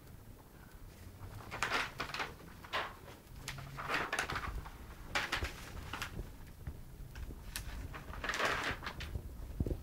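Newspaper pages rustling and crackling as they are handled and turned, in several short bursts.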